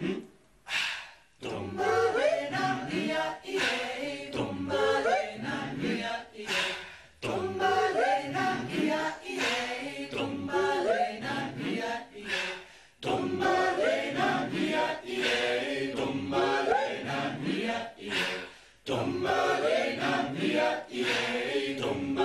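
A choir singing an a cappella chant, many voices together.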